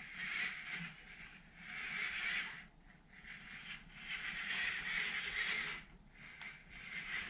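Small electric gear motors of a toy-grade RC excavator's tracks whirring in about four bursts with short pauses, as the machine pivots round on the spot on a trailer deck.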